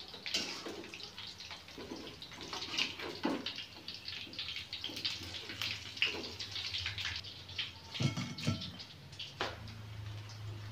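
Oil sizzling and crackling with many small pops as flour-coated pieces fry in a wok. A metal spatula knocks and scrapes against the wok a few times about eight seconds in.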